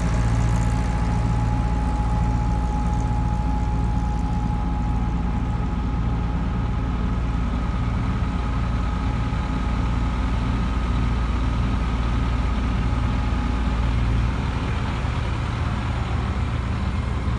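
Heavy diesel road-building machinery, including a bulk cement spreader truck laying dry cement powder on a road bed, running with a steady low rumble and a thin steady whine over it. The rumble eases somewhat near the end.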